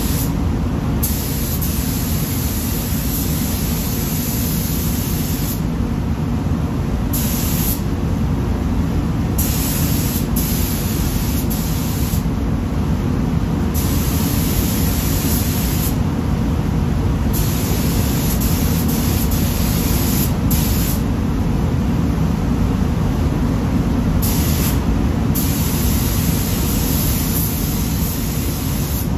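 Automotive paint spray gun hissing in passes of a few seconds, cut off by short pauses as the trigger is released, while coating a car liftgate in three-stage pearl white. Under it, the spray booth's air system makes a steady low rumble.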